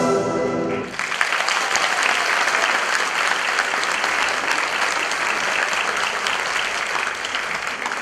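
Ballet music comes to its end about a second in, and an audience then applauds, clapping steadily for several seconds and beginning to thin near the end.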